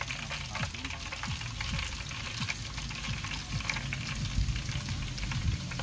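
Whole carp deep-frying in a wok of hot oil: steady sizzling with many small crackling pops of oil. Short low thumps sound underneath, the loudest about four and a half seconds in.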